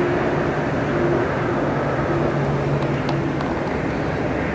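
Steady outdoor rumbling noise with a faint, wavering low hum, engine- or traffic-like.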